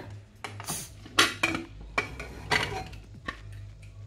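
Pressure cooker being opened after cooking: a series of sharp metal clinks and knocks from the lid and pot, about eight, spread unevenly.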